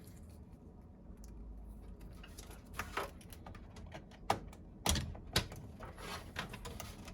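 Plastic clicks and knocks of a large motherboard power cable connector being lined up and pushed into its socket, with a run of short sharp clicks, the loudest about five seconds in.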